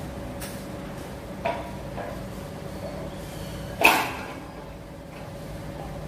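Ceiling fan's plastic covers being handled and fitted back into place: a couple of light knocks, then one sharp clack about four seconds in, over a faint steady hum.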